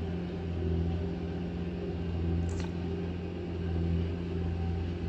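Earthmoving machine's engine running steadily at a worksite: a low hum that swells a little now and then, with one faint click about two and a half seconds in.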